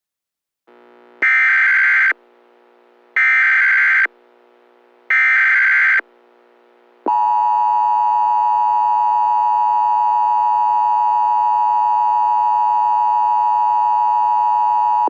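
Emergency Alert System tones: three short bursts of SAME header data, each about a second long and a second apart, followed by the steady two-tone EAS attention signal held for about eight seconds.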